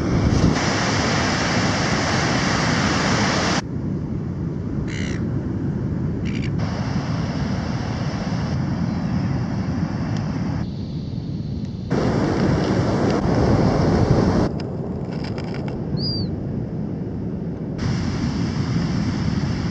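Steady surf and wind rushing on the microphone, its loudness jumping abruptly several times, with a couple of short bird calls about five and six seconds in and a brief chirp later on.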